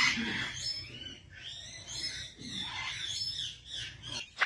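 A parrot vocalizing in soft calls that rise and fall in pitch.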